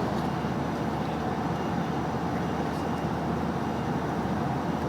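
Steady low rumble inside a van, its engine idling.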